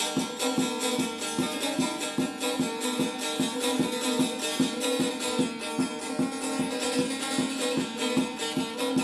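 Šargija, a long-necked plucked lute, played solo in quick, even strokes, several a second, over a steady droning tone.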